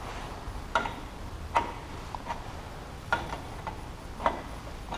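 A wrench clicking on an 18 mm hydraulic hose fitting as it is worked around. About six short, sharp clicks come roughly two-thirds of a second apart.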